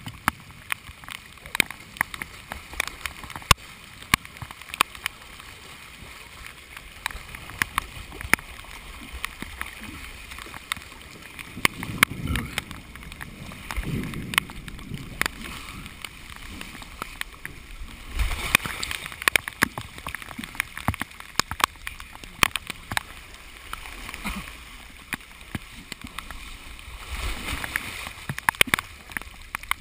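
Fast-flowing floodwater rushing, sloshing and gurgling right at the camera, which sits at the water's surface, with dense sharp ticks of water and rain drops striking the camera housing. The rush of water swells louder several times.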